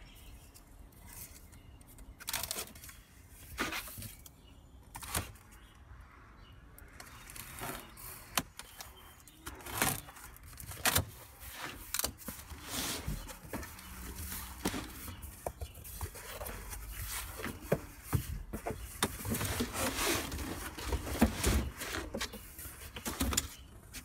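Box cutter slicing the packing tape on a cardboard carton, then the cardboard flaps being pulled open and folded back: irregular sharp rips, scrapes and rustles that come more often in the second half.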